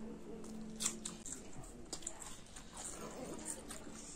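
Close-up eating sounds: chewing and wet mouth smacks of chicken and rice, with scattered sharp clicks, the strongest about a second in.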